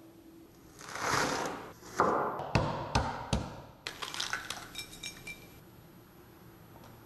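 Kitchen prep sounds: a wooden spoon stirring thick sauce in a ceramic bowl, then a few sharp knocks followed by the fine crackling of a boiled egg's shell being peeled off.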